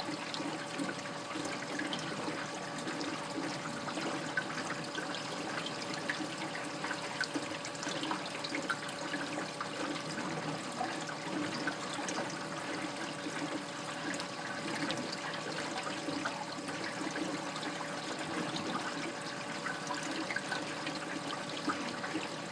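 Aquarium water trickling and splashing steadily as it drains into the sump of a large cichlid tank system, with a faint steady hum underneath.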